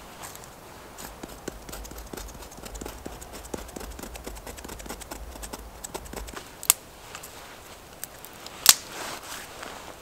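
Dry sticks and kindling being handled and laid on dry leaf litter: a run of small ticks and rustles, then two sharp wooden knocks about two seconds apart in the second half, the second louder.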